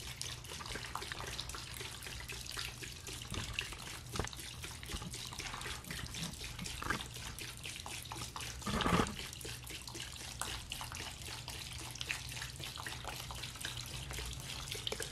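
CLR rust remover poured from a plastic jug into a plastic tub of rusty motorcycle parts: a steady splashing pour with fine fizzing crackle as the foaming liquid reacts with the rust, and one brief louder splash about nine seconds in.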